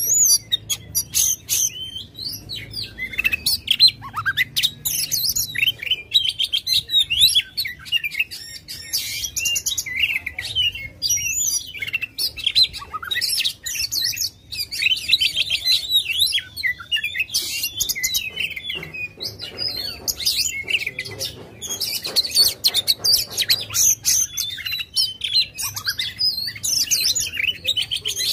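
Oriental magpie-robin (kacer) singing in full, aggressive song: a fast, unbroken stream of varied whistles, slurred chirps and buzzy trills.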